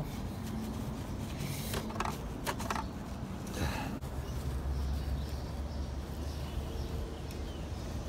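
Handling sounds of a car battery's negative cable terminal being twisted and worked off its post by hand through a paper towel: a few sharp clicks and a short scrape, then a low rumble from about four to seven seconds in.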